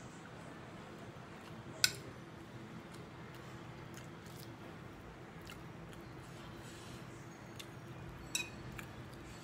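Hand eating from a ceramic plate: fingers mixing noodles with small soft ticks, and two sharp clinks against the plate, a loud one about two seconds in and a softer one near the end, over a steady low hum.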